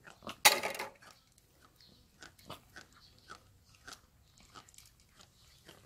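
Cats crunching dry kibble: faint small crunches, about two or three a second, after a short loud noisy burst about half a second in.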